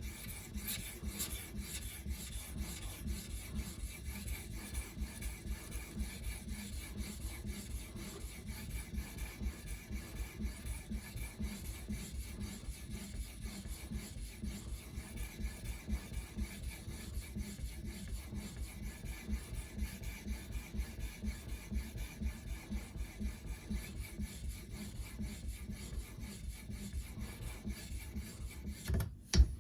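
A 650-grit diamond matrix stone on an Edge Pro sharpener rasping across a steel knife edge in quick, even back-and-forth strokes. A single knock comes near the end.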